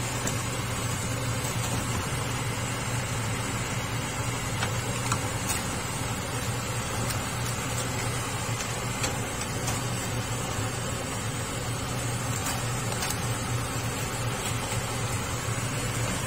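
Crabs being turned in a cooking pot with a wooden spatula, their shells clicking faintly now and then, over a steady mechanical hum and hiss.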